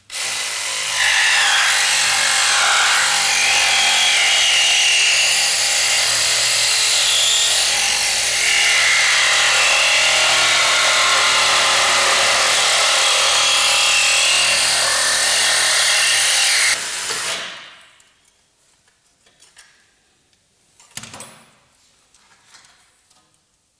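Snap-on reciprocating saw cutting through a seized, rusty suspension-arm bolt and its bush, running steadily for about seventeen seconds before it stops suddenly. A couple of faint knocks follow.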